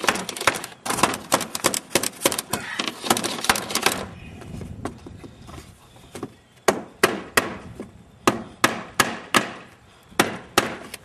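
Sharp wooden knocking as cedar ribs are driven into a birch bark canoe. Rapid, crowded strikes at first, then after about four seconds separate strikes about three a second, with a short pause before a final few.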